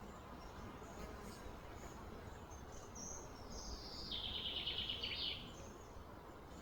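Songbird calling over low steady outdoor background noise: a few small high chirps, then about three and a half seconds in a call that slides down into a rapid trill lasting a little over a second.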